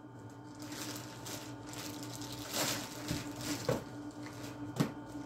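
Plastic mailer bag and cardboard product box being handled and opened, a soft crinkling rustle with a few sharp clicks and snaps.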